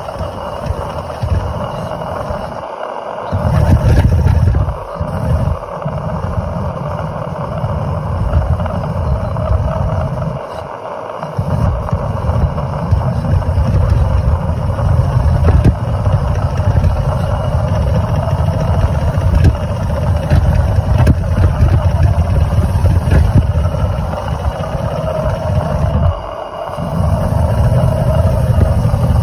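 Maxitrak 3/4-inch-scale Sentinel DG6 live-steam wagon running under way, heard from on board: a loud, continuous mechanical rumble with a lighter busy rattle and scattered small ticks. The low rumble drops out briefly a few times.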